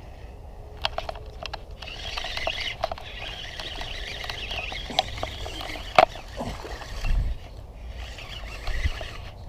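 Fishing reel and line handled right by the microphone: scattered clicks and a scratchy, rustling hiss, with one sharp click about six seconds in and a low thump a second later.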